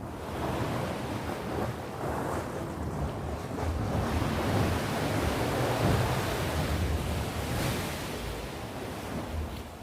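Sea waves breaking, a rushing wash that swells to a peak midway and eases off toward the end.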